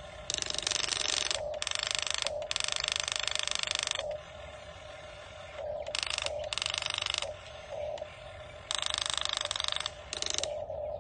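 Repeated bursts of fast mechanical clicking and grinding, each about half a second to one and a half seconds long, over a steady hum.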